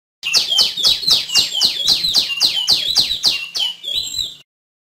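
Female tiểu my songbird calling: a fast run of about fourteen sharp notes, each sliding down in pitch, about three a second, which stops just before the end.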